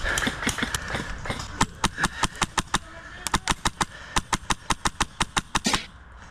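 Airsoft rifle firing a rapid string of sharp shots, about six or seven a second, in two bursts with a short break about three seconds in.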